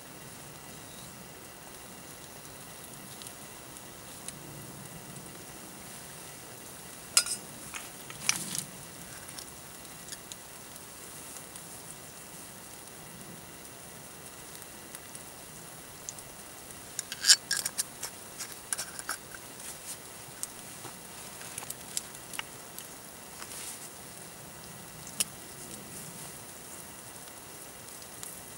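Eggs sizzling steadily in a steel frying pan over a gas camping stove, with a few sharp clicks and scrapes, the loudest cluster about 17 seconds in.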